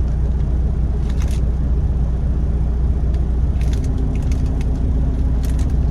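Semi truck's diesel engine idling with a steady low rumble, heard from inside the cab, with a few light clicks and rustles.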